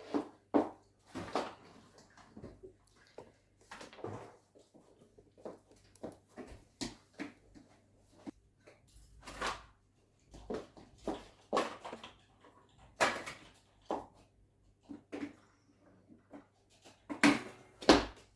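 Irregular knocks, clunks and short rustles of objects being handled and set down, the loudest two knocks near the end, over a faint steady hum.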